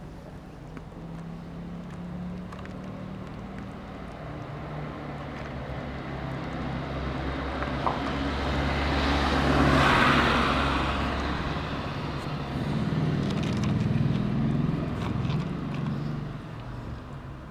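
A motor vehicle driving past. Engine and tyre noise grow louder to a peak about ten seconds in, then fade, swelling again briefly a few seconds later.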